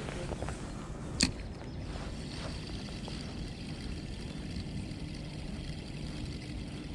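Shimano Stradic 2500 spinning reel retrieving a lure just after a cast: a single sharp click about a second in as the bail is closed, then a faint steady whir of the reel being wound, over low wind and water noise.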